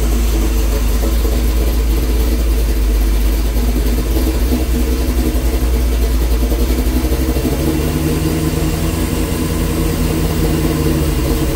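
Truck's freshly rebuilt V8, with a COMP Cams Thumpr hydraulic roller cam, idling steadily while warming up. About eight seconds in a steady hum joins the idle for a few seconds.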